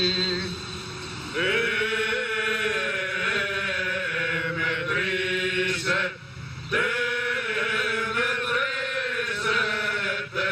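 A group of men singing a slow, chant-like song in unison, in long held phrases, with a brief pause about six seconds in.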